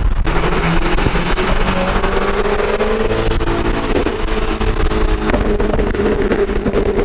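Car engine and exhaust under hard acceleration at speed, the engine note climbing in pitch and breaking off about four seconds in and again a second later, as at gear changes, over steady wind and road noise.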